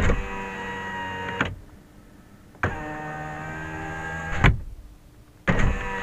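Car power window motor running with a steady whine, each run ending in a thump as the glass reaches its stop. Two runs of about a second and a half to two seconds, with a third starting near the end.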